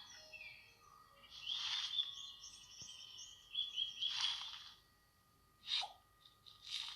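Faint high bird chirps, with a few short hissy bursts.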